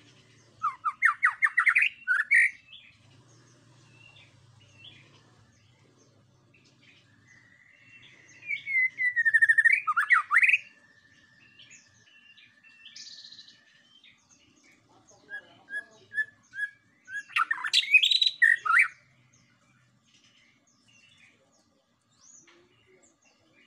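White-rumped shama singing in separate phrases. A quick run of notes comes about a second in, then a long steady whistle carrying a loud sweeping flourish around the middle, then a few short notes and a loud rich phrase a little later.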